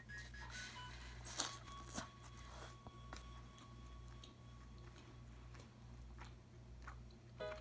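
Quiet chewing and biting of food close to the microphone, with a few short soft crunches spread through.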